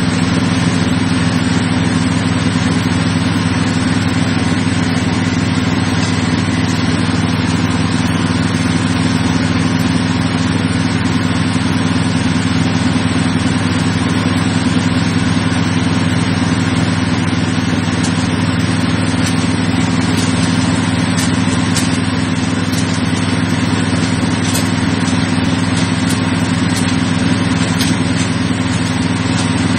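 Multifunction chopper machine driven by a 6.5 hp engine, running steadily while grinding rice husk into flour: a constant engine note with the grinding mill's hiss over it.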